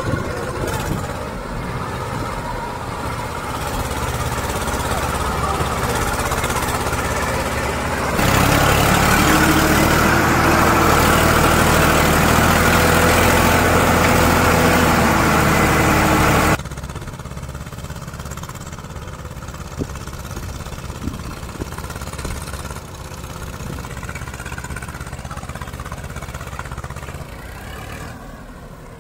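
Diesel tractor engines running steadily under load while working through a muddy field. From about 8 s to about 16 s one engine is heard up close from a tractor's driving seat, much louder and steadier. After that it cuts back to quieter engines heard from farther off.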